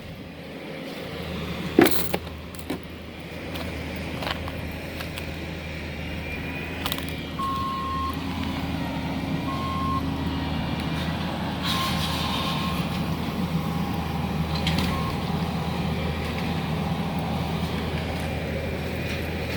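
Heavy-equipment diesel engine running steadily while demolition debris is loaded into a roll-off dumpster, with a loud clunk about two seconds in and a few lighter knocks after. A backup alarm beeps a few times around the middle.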